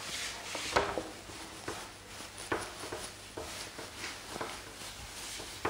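A whiteboard being wiped clean with a duster: a series of rubbing strokes across the board, roughly one a second.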